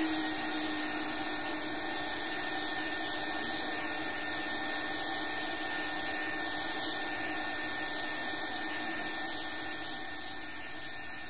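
Vacuum cleaner motor running steadily: a rushing hiss of air with a steady hum, heard through a cheap cassette recorder. The sound slowly fades out toward the end.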